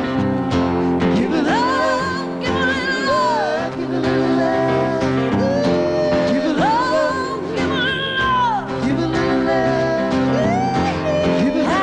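Country song performed live by two women's voices singing together, with acoustic guitar and a backing band. The voices hold long notes with vibrato.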